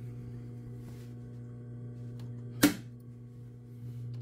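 Industrial sewing machine's motor humming steadily while switched on, ready to sew. One sharp click comes about two and a half seconds in.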